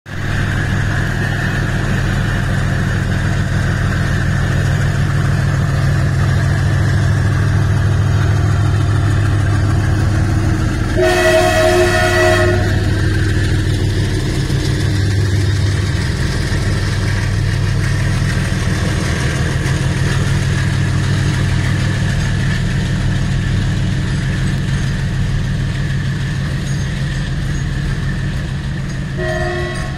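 Container freight train led by a WDG4G diesel locomotive running past with a deep, steady rumble of engine and rolling wagons. A train horn blows for about a second and a half around eleven seconds in, and again briefly near the end.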